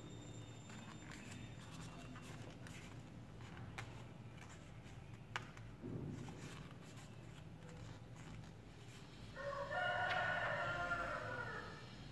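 A single long animal call starts about nine seconds in and lasts some two and a half seconds. Before it there is soft rustling and a few light clicks from a folded dollar bill being worked by hand.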